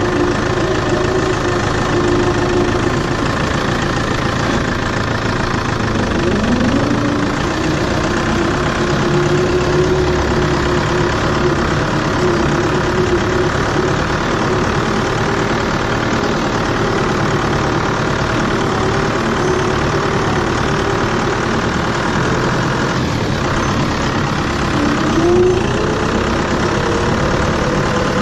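Tractor engine running steadily, with the engine note rising briefly about six seconds in and rising again near the end as it revs up, staying higher after that.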